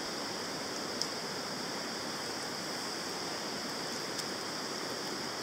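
Steady rushing hiss, with a faint click about a second in and another about four seconds in.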